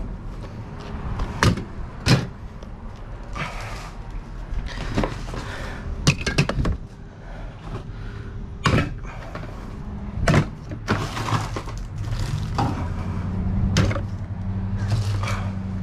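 Scattered knocks and clanks, about half a dozen sharp ones, as items are pulled out of a dumpster and handled. Under them runs a low steady hum that grows louder in the last few seconds.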